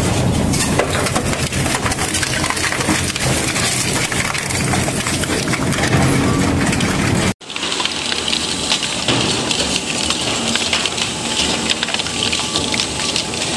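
Industrial shredder crunching through material, a dense, loud crackling clatter. An abrupt break about seven seconds in, after which the crackle is thinner and higher-pitched.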